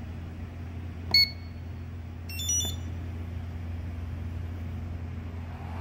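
Hobby balance charger beeping: one short beep about a second in as a button is pressed, then a quick run of higher chirping beeps a second later as it starts a battery check before charging. A steady low hum runs underneath.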